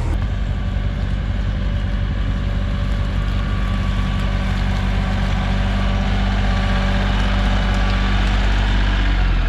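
Kioti CK3510 compact tractor's three-cylinder diesel engine running steadily at low speed as the tractor is driven over beach gravel.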